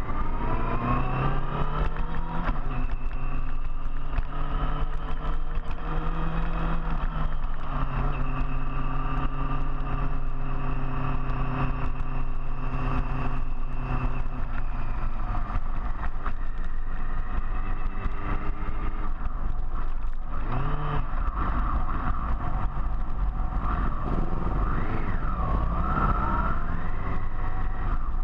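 Big touring motorcycle engine running under way with constant wind rumble, its pitch climbing at the start, holding steady, then dropping off about halfway through. A short rising tone comes near the end.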